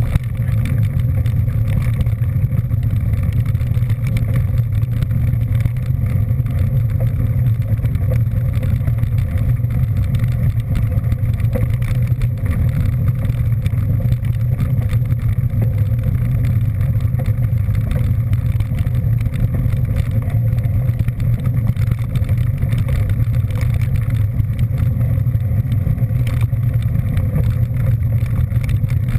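Steady low rumble of a vehicle on the move, unchanging throughout.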